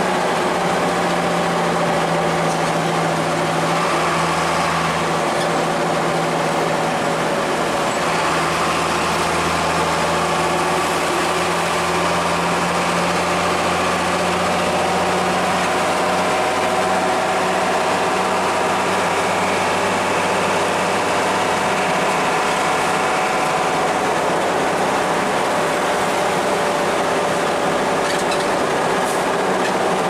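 Cabin noise of a Mercedes-Benz intercity bus cruising on a highway: a steady engine drone with road and wind noise and a faint hum that drifts slowly in pitch.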